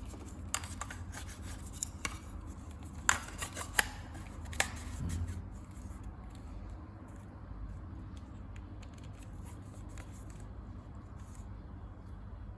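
Hands handling a hair dryer and its packaging: a scatter of short, sharp clicks and light rustles, mostly in the first five seconds, over a low steady hum.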